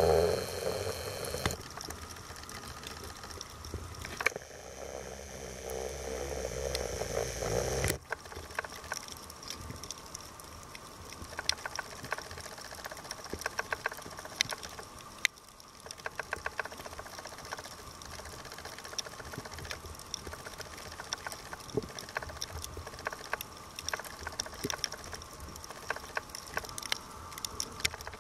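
Underwater recording: a scuba diver's exhaled bubbles gurgle in two bursts in the first eight seconds, then a dense, irregular crackle of clicks runs on.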